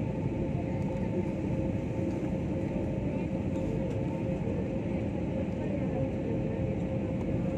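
Steady cabin noise inside a jet airliner during its descent: the rush of the engines and airflow, with a constant hum running through it.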